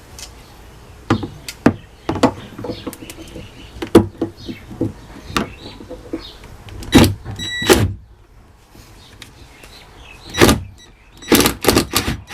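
Irregular clicks, knocks and clatter of hand work on boat hardware as bolts and fittings are taken off, with a few louder short bursts and one brief high squeak about halfway through.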